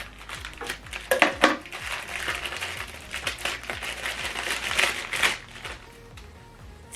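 Packaging crinkling and rustling as it is handled, with a couple of sharp knocks about a second in. The crinkling stops shortly after five seconds.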